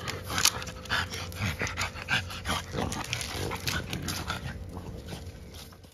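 French bulldog puppies play-fighting and mouthing each other, with short vocal sounds among many quick clicks and scuffles. The sound fades out near the end.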